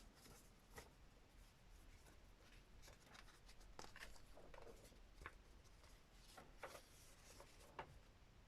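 Faint handling of the figure's packaging and paper instructions: light rustling with a few soft, scattered clicks.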